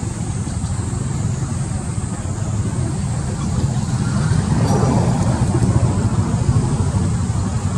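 A motor vehicle's engine running, a steady low rumble that swells louder for a couple of seconds around the middle.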